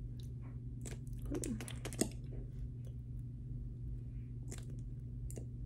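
Scattered small clicks and taps, with a cluster about one to two seconds in, over a steady low hum.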